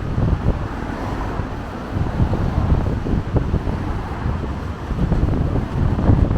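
Strong gusty wind buffeting the camera's built-in microphone, a rumbling low roar that rises and falls with the gusts.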